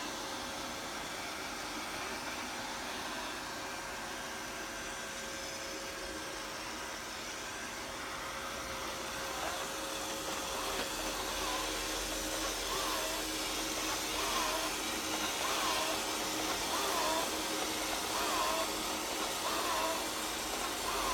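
eufy RoboVac 20 robot vacuum running, a steady whirring hum with a constant tone. In the second half a faint chirp repeats about every second and a half.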